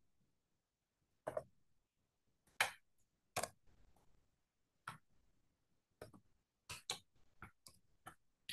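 Scattered single clicks of a computer mouse, about ten spread irregularly over several seconds, with quiet between them.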